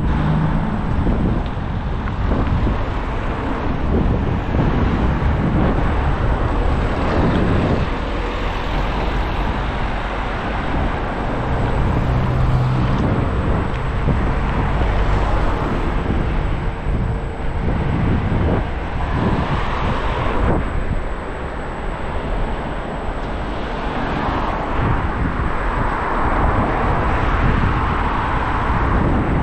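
Steady rumbling noise of a scooter ride on town roads: wind on the microphone and the wheels rolling on asphalt, with a couple of louder swells in the second half.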